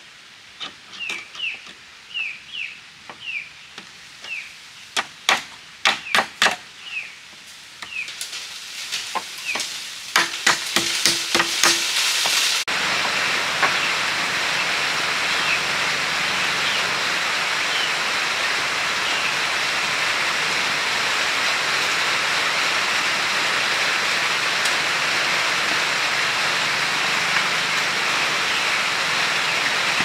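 A bird chirps over and over with a run of sharp knocks. About twelve seconds in, a loud, steady hiss of falling water begins suddenly and carries on unchanged.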